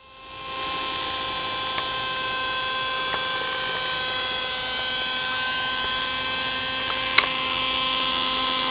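Thunder Tiger Raptor 30 nitro RC helicopter in flight, its glow engine and rotor making a steady high whine that grows a little louder as it comes in low. A few sharp clicks cut through, the sharpest about seven seconds in.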